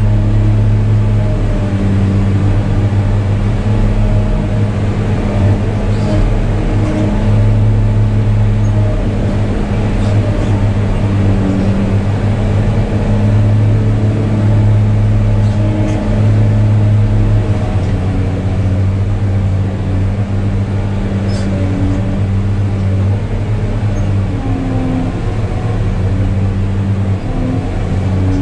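Diesel engine of a New Holland RG140B motor grader running steadily while it works the road, with a deep hum that holds with only slight shifts in pitch and load.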